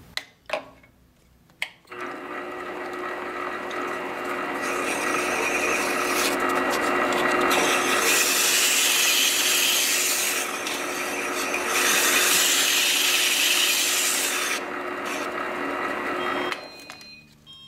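A small metal lathe starts up about two seconds in and runs with a steady hum while sandpaper is held against the end of a spinning wooden dowel to take off burrs, a sanding hiss that swells and eases. The lathe shuts off near the end.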